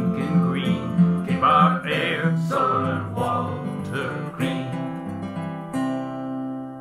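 Acoustic guitar strumming the close of a folk song, with singing over it for the first few seconds. Near the end a final strum rings out and fades.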